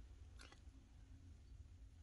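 Near silence: room tone with a low hum, and one faint click about half a second in.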